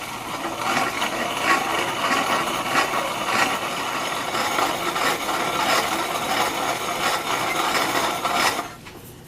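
Corona-style grain mill grinding malted barley, a continuous gritty crunching and rasping as the kernels are crushed between the plates, stopping abruptly about 8.5 seconds in.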